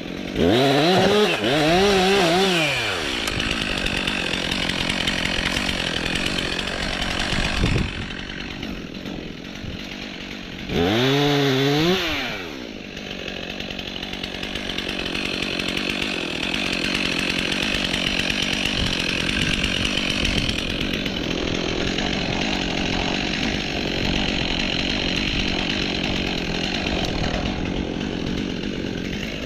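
Stihl MS 362 C two-stroke chainsaw revving in a short, louder burst near the start and again about eleven seconds in, rising and falling in pitch each time. In between and after, it runs steadily, cutting birch wood.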